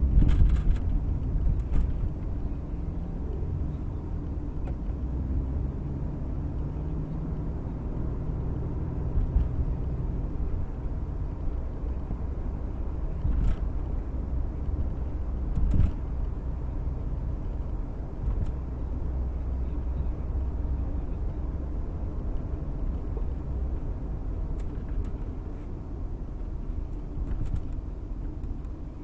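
Road noise inside a moving car's cabin: a steady low rumble of tyres and engine, with a few brief knocks or rattles, the loudest about 16 seconds in.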